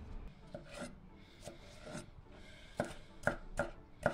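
Chef's knife cutting a red bell pepper on a bamboo cutting board: a few soft handling taps and a short rasp of the blade through the pepper, then the knife starts chopping, striking the board about twice a second near the end.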